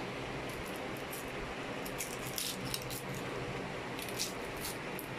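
A few light clicks and clinks of kitchen food preparation, mostly in the second half, over a steady background hum.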